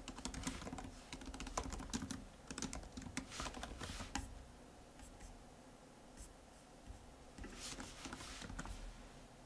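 Typing on a computer keyboard: a quick run of key clicks for the first four seconds, a pause, then a few more keystrokes near the end.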